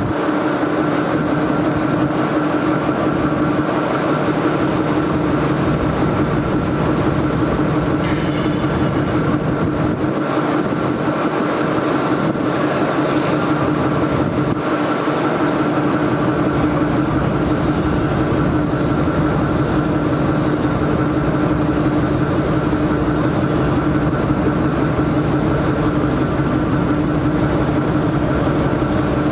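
Steady machinery noise: a constant hum with a higher whine over a continuous rumble, unchanging throughout.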